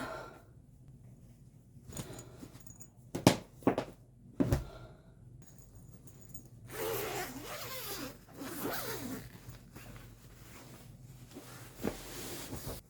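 A few sharp knocks, then a few seconds of rasping, zip-like noise from handling.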